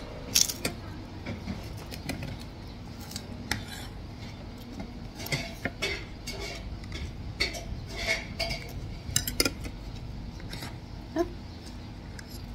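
Cutlery clinking and scraping against plates as people eat, in irregular, quick clicks and clinks with now and then a brief ring.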